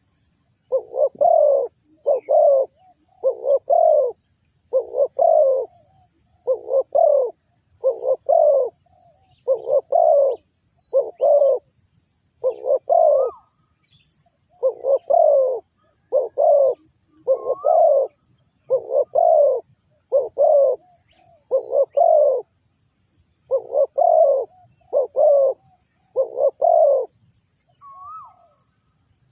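Spotted dove cooing over and over, about one coo a second, with a break of a couple of seconds midway and stopping shortly before the end. Small birds chirp thinly and high throughout.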